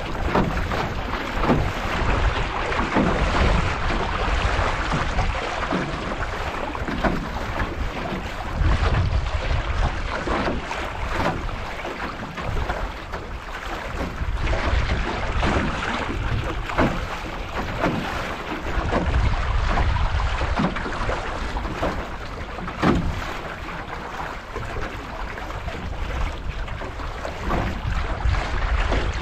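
Water rushing along and waves slapping irregularly against the aluminum hull of a Grumman 17 canoe sailing through choppy water, with wind buffeting the microphone in gusts.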